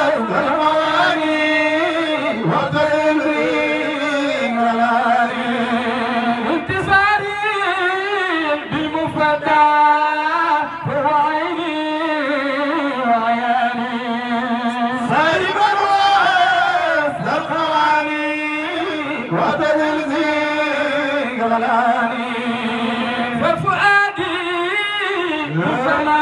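Men chanting a Sufi zikr in Arabic into microphones, with long held, ornamented melodic phrases that follow one after another and no drums or instruments.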